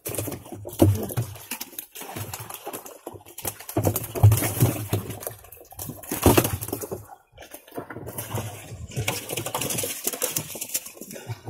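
Live fish flapping and splashing in shallow water inside a crowded net while hands grab them out: irregular wet slaps and splashes, some sharp and some in short noisy flurries.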